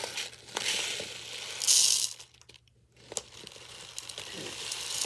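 Plastic rice bag crinkling and rustling, loudest in a short burst about a second and a half in, then, after a brief pause, uncooked rice grains pouring out of the bag in a hiss that grows louder.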